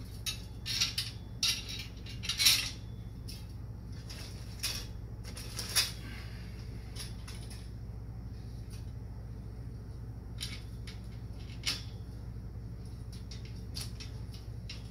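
Light clinks, taps and rattles of game-frame parts and hardware being handled and fitted together, a quick run of them in the first six seconds and a few scattered ones after. A steady low hum lies underneath.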